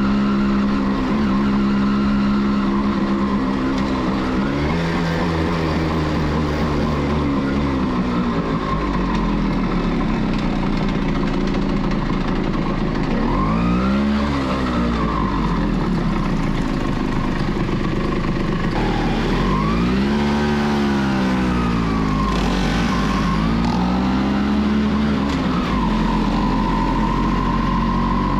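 1989 Kawasaki B1's two-stroke engine heard from the saddle while riding, its pitch rising and then falling several times as the rider opens and closes the throttle in city traffic.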